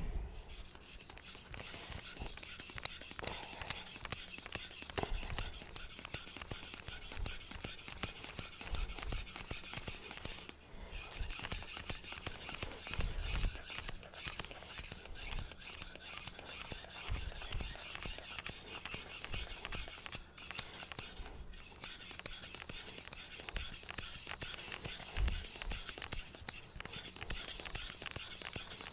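An R2/SG2 powdered-steel bunka blade being stroked rapidly back and forth on a wet #1000-grit synthetic whetstone that is building up slurry. The steel-on-stone scraping runs steadily, with a few brief pauses between sets of strokes.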